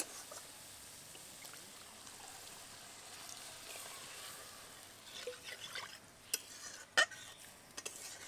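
Water poured into a hot kadai of mustard paste and spices in mustard oil, with a steady hiss from the pan. Several sharp knocks of utensils against the pan come in the last few seconds.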